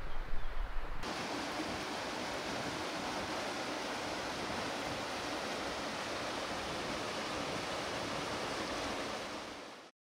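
Mountain torrent rushing steadily over rocks, starting about a second in after a brief low rumble and fading out near the end.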